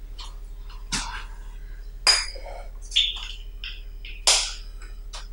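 A few sharp clinks and clatters of hard objects being handled on a table, about one a second, the loudest two about two and four seconds in, over a steady low electrical hum.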